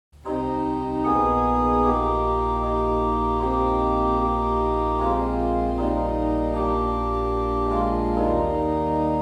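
Organ playing slow, sustained chords over a deep pedal bass. It starts abruptly, and the chords shift every second or two. The deepest bass note drops out about eight and a half seconds in.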